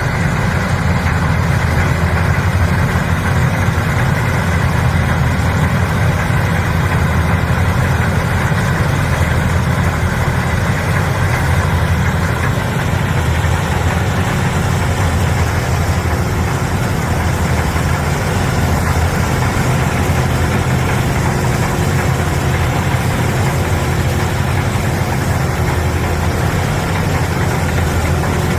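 TYM TH1200 soybean combine running steadily, its engine giving an even low drone with no change in speed.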